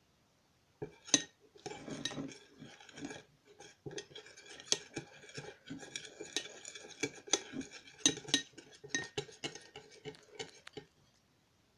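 Metal spoon stirring a thick glue-and-baking-powder slime in a glass bowl, clinking and scraping against the glass in quick irregular taps. It starts about a second in and stops shortly before the end.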